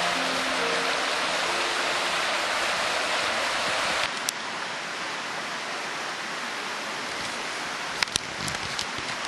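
A mountain stream running over rocks, a steady rush of water that drops to a quieter level about four seconds in. A few light clicks come near the end.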